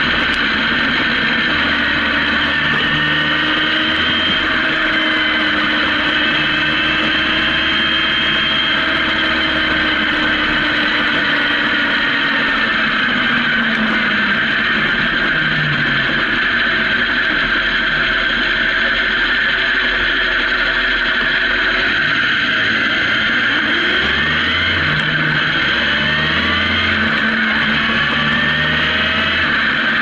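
Honda CB750's inline-four engine running under way with heavy wind noise on the microphone. The engine note falls as the bike slows around the middle, then rises again several times near the end as it speeds up.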